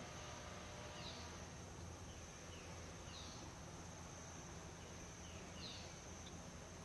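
Faint outdoor ambience: a steady high-pitched insect drone, with a bird giving short chirps every two seconds or so, over a low background rumble.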